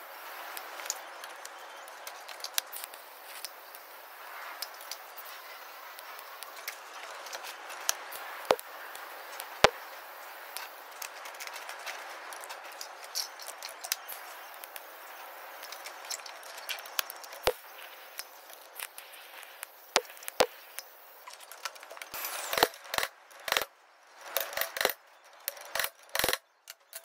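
TIG welder arc hissing steadily with the odd crackle as a weld bead is run around the inside of a stuck bearing race, so that the weld's shrinkage will loosen it. The hiss stops about 21 seconds in and is followed by a string of sharp clicks and metal knocks.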